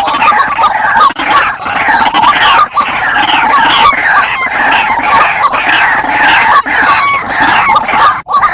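Wild white-breasted waterhens calling noisily: many overlapping, rapidly repeated calls form a dense, loud chorus. This is a lure-call recording used to draw the birds in.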